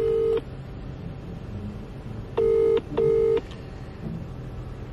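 British telephone ringback tone heard through a phone's loudspeaker while an outgoing call waits to be answered: the double "ring-ring" of two close steady tones, the end of one pair right at the start and one full pair a couple of seconds later.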